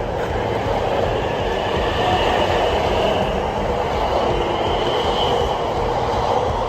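A train running past on the rails: a loud, steady rumble with a faint, wavering high squeal above it.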